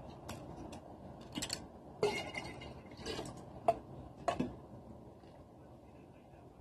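Light clicks and knocks of small plastic Yakult bottles being handled: a foil lid peeled off, the Yakult emptied into a glass pitcher, and bottles set down on the table. The handling noises come in a run of short separate taps over the first four seconds or so, then thin out.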